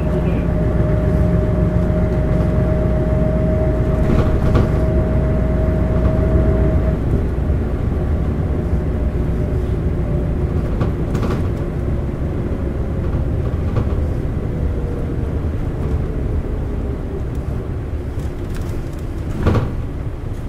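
Cabin sound of an Isuzu LV city bus's 8PE1 V8 diesel and drivetrain under way, with a steady high-pitched whine over the low engine rumble. The whine stops about seven seconds in, and a second whine then slides slowly down in pitch as the bus slows. A short knock comes near the end. The uploader puts the high-pitched engine note down to age-related wear.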